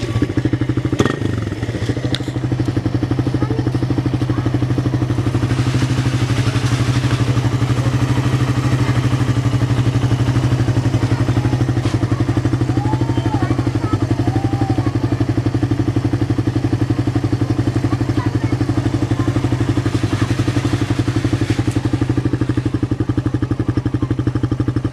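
Suzuki Raider 150's single-cylinder four-stroke engine idling steadily through its stock exhaust, which has a catalytic insert fitted in the pipe.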